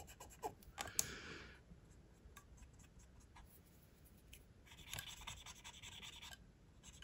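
Cotton bud rubbing over the side of a model railway wagon, wiping off weathering wash: two faint spells of soft scratchy rubbing, about a second in and again about five seconds in, with a few small clicks.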